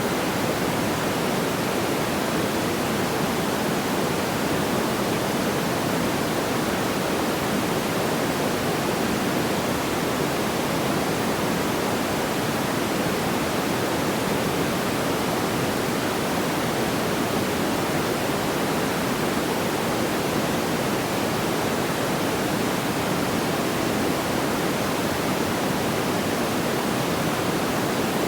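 Steady, even rushing noise, fullest in the low-middle range, with no distinct crackles or pops.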